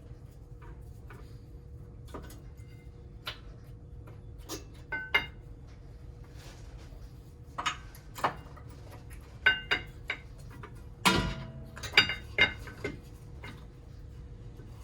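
Brake pads and their metal wear-indicator clips clinking as they are handled and fitted: a scattered series of sharp metallic taps and clicks with short rings, and a heavier clunk about eleven seconds in.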